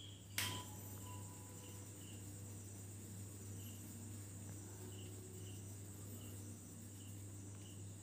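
Faint, steady high-pitched insect chirring with a low hum under it. One sharp knock sounds about half a second in.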